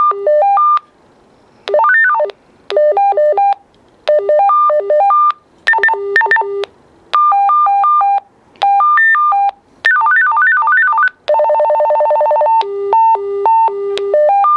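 Retevis RT602 UHF walkie-talkie playing its call tones through its small speaker: about nine short electronic jingles of stepped beeping notes, one after another as the call-tone groups are stepped through, one of them a rapid buzzing trill near the end.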